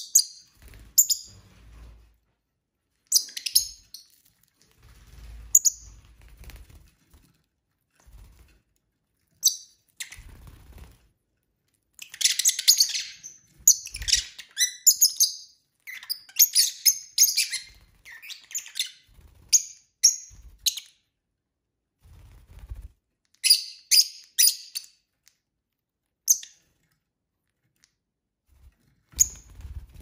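Pet lovebirds chirping in short, high, scratchy calls, now single and now in busy runs of rapid chirps, the busiest near the middle and another run a little later. Soft low thumps come in between.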